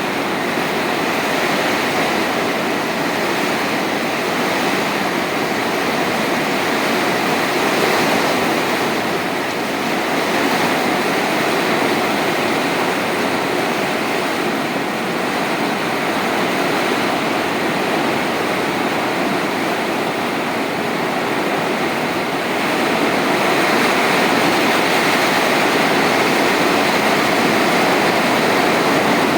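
Heavy rain pouring down in a dense, steady hiss that grows a little louder in the last few seconds.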